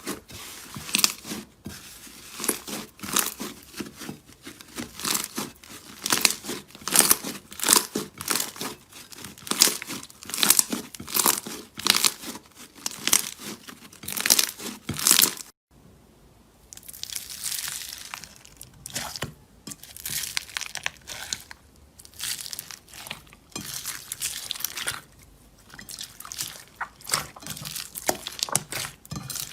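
Slime being squeezed and pressed by hand, crackling and popping in repeated bursts. The sound breaks off briefly about halfway through, then goes on with softer, sparser crackles.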